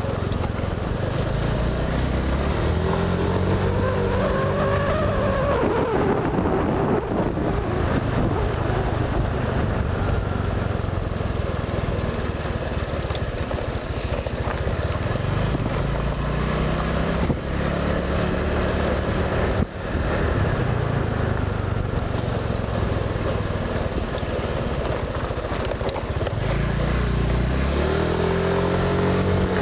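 Honda Vario 125 PGM-FI scooter's single-cylinder four-stroke engine running while riding, rising in pitch as it accelerates about 3 seconds in, again around 15 seconds and near the end, and easing off between. It is fitted with a new ignition coil and spark plug, and the owner hears no "snore" in it.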